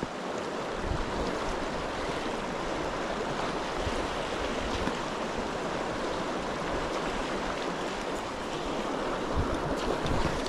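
Steady rush of the River Tweed's current flowing.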